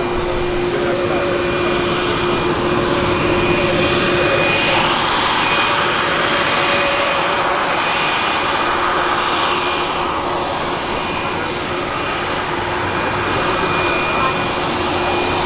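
Jet airliner engines running, a loud, steady rushing noise with constant whining tones held throughout.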